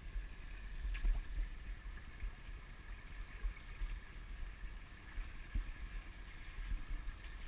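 A shallow rocky stream trickling steadily, under a gusty low rumble on the microphone, with a few faint clicks of footsteps on stones.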